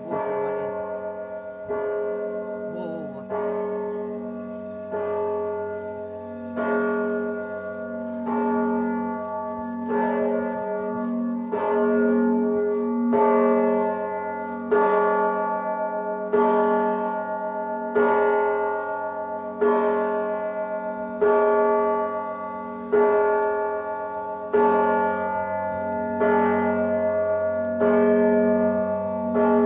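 Church bells ringing: several bells struck together in an even rhythm, about one stroke every second and a half. Each stroke rings on and fades into the next, over the steady low hum of a large bell.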